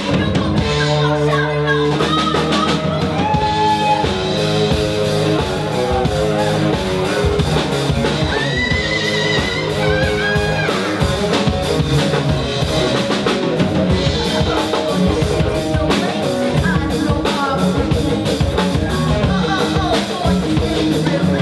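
Live band of electric guitars, bass, drum kit, piano and keyboard playing a musical theatre song, with a woman singing into a microphone over it. A wavering high note is held for about two seconds near the middle.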